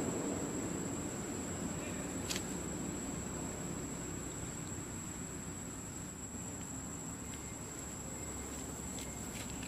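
Insect drone, one steady high-pitched tone, over a low background hiss, with a faint click about two seconds in and a few more near the end.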